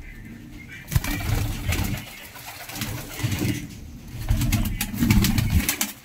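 A flock of domestic pigeons cooing. Loud bursts of rustling about a second in and again near the end are the loudest parts.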